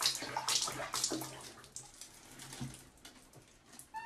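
Water splashing and sloshing in a plastic basin as a cat is bathed in soapy water, getting quieter after the first couple of seconds. Near the end the cat meows once, its pitch falling.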